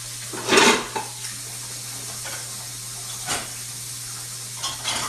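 Dry uncooked noodles snapping with a short crackling crunch about half a second in, faking the sound of a back cracking. Two fainter clicks follow later.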